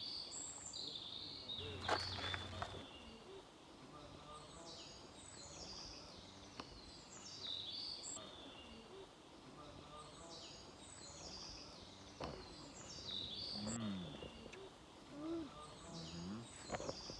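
A small songbird singing, repeating a short phrase of high notes that fall in pitch every couple of seconds, over a light outdoor background hiss. A single knock sounds about two seconds in.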